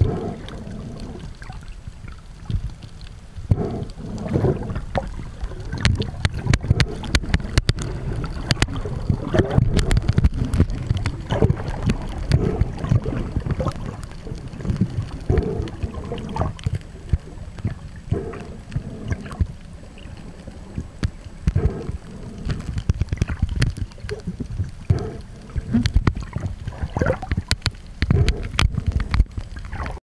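Water sloshing and gurgling against a camera recording underwater, muffled and low-pitched, with irregular thumps and scattered clicks throughout.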